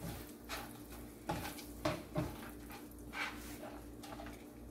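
Silicone spatula stirring whole spices frying in melted butter in a nonstick pan over low heat: a handful of short, soft scrapes over a light sizzle. A steady low hum runs underneath.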